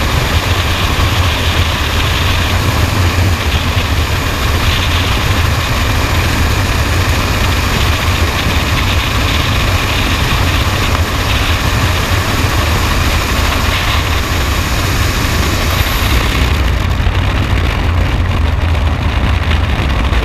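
Freefall wind rushing over a helmet-mounted camera's microphone: a loud, steady roar with a deep rumble. About three-quarters of the way through, the highest hiss drops away.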